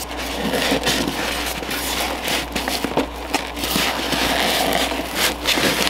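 Packaging rustling and crackling as a boxed light fixture is unpacked, with many short crinkles and clicks.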